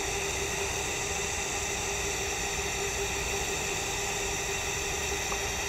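TIG welding arc burning on carbon steel at about 85 amps: a steady hiss with a faint constant tone underneath, unchanged throughout.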